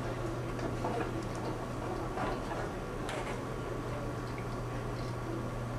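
Room tone with a steady low electrical hum and hiss, and a few faint, scattered ticks.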